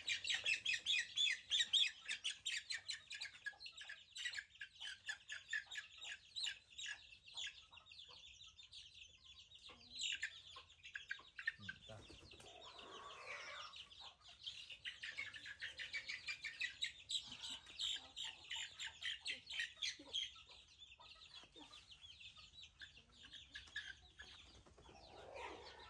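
Chickens calling around a farmyard: runs of rapid, high-pitched chirping and clucking that come and go, strongest at the start and again in the middle, with one lower, longer call a little before halfway.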